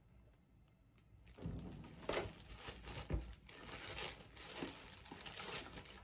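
Packaging rustling and crinkling as a drawstring bag is opened by hand, in irregular short bursts of handling noise that start about a second and a half in.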